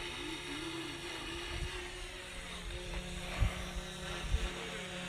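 Quadcopter drone's propellers whining, their pitch bending up and down as the drone manoeuvres, with a couple of brief low thumps in the second half.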